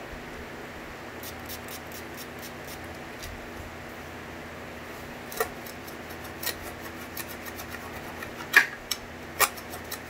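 Wiping and rubbing on the clear plastic part in the base of an upright Hoover vacuum, as it is cleaned of dirt. Light ticks early on, then a handful of short, sharper rubs and squeaks from about five seconds in, the loudest near the end.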